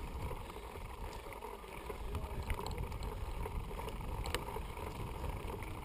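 Mountain bike riding fast down a dirt trail: a steady rumble of tyres on the ground mixed with wind on the microphone, and a few sharp clicks and rattles from the bike, the clearest about four seconds in.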